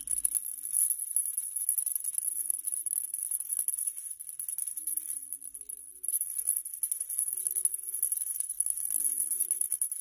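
A maraca shaken rapidly and continuously in quick rattling strokes, easing off briefly about halfway through before picking up again.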